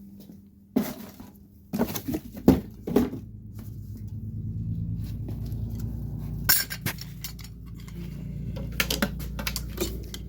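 Metal tools and hardware clattering and clinking as they are handled on a workbench, with several sharp knocks, over a steady low hum.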